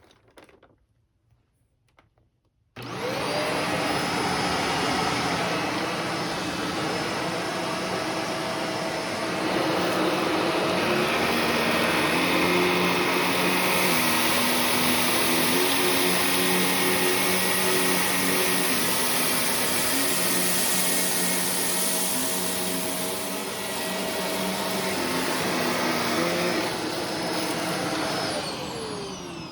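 Shark Rotator upright vacuum cleaner switched on about three seconds in, its motor whining up to speed, then running loud and steady as it picks up cat litter, its pitch shifting in steps. Near the end it is switched off and winds down with a falling whine.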